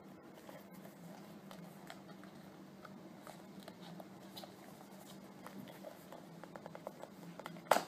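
Small rustles and taps from handling an album's packaging and inserts, with one sharp knock near the end, over a steady low hum.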